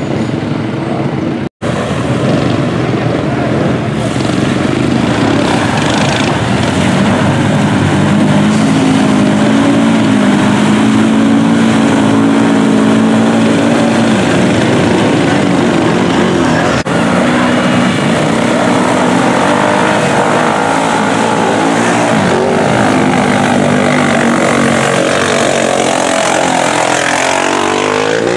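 4x4 ATV engines revving hard as quads are driven through a mud bog pit, their pitch rising and falling with the throttle. Near the end one engine revs sharply upward.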